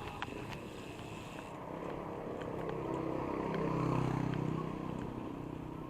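A motor vehicle's engine passing close by, growing louder to a peak about four seconds in and then fading, over steady wind and road noise.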